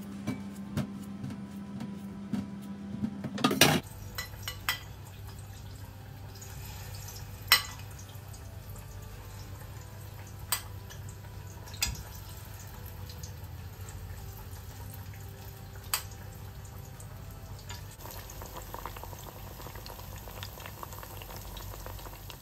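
Kitchen sounds during cooking: a steady hum stops with a clatter a little under four seconds in. A lower hum then runs under occasional single clinks of dishes and utensils.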